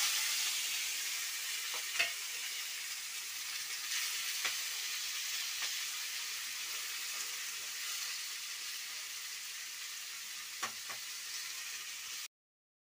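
Chopped onions, tomatoes and green chillies sizzling in hot oil and cumin in a metal kadai. The hiss is loudest at first and slowly eases, with a few clinks of the spatula against the pan as they are stirred. The sound cuts off suddenly near the end.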